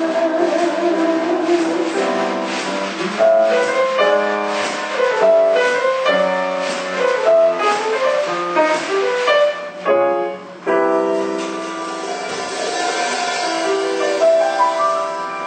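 Instrumental music led by piano, with no singing, dropping briefly about ten seconds in before carrying on.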